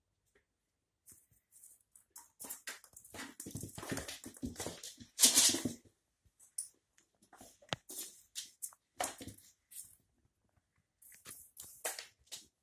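Cat scrabbling at a plastic litter tray with a grid insert on a laminate floor: irregular scraping, rustling and light plastic clatter, loudest about five seconds in, then scattered shorter scrapes.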